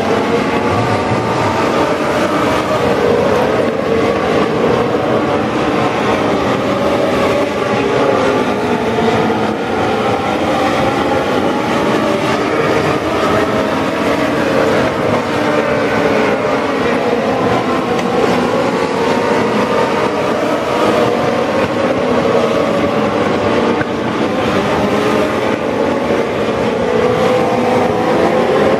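A field of Legends race cars at speed, their Yamaha four-cylinder motorcycle engines running at high revs together. It is a steady, loud drone of several overlapping engine notes that rise and fall as the cars lap the oval.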